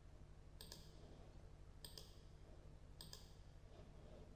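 Faint computer mouse button clicks: a quick pair under a second in, then single clicks near two and three seconds, over a low steady hum.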